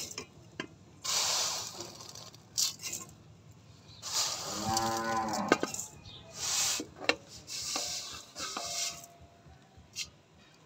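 A cow moos once, about a second long, midway through. Around it come several rustling bursts as handfuls of dry vermicelli are dropped from a steel tray into a pot of boiling water.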